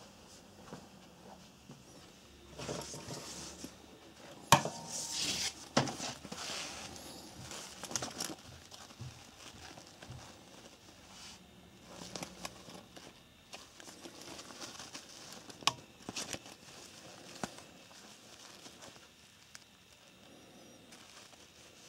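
Handling noise from a Diesel business bag's woven shoulder strap being turned in cotton-gloved hands: fabric rustling in bursts, with a few sharp clicks of its plastic snap hook and buckle. The loudest click comes about four and a half seconds in.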